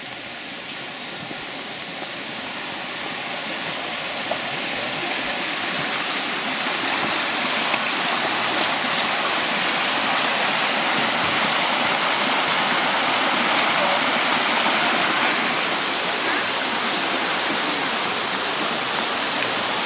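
Stream water running over rocks in a steady rush, growing louder over the first several seconds and then holding steady.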